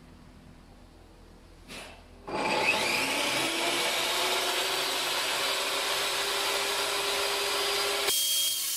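Power saw ripping a wooden board to size, starting about two seconds in and running steadily under load for about six seconds. Near the end it cuts off abruptly and a different, higher-pitched power-tool whine takes over.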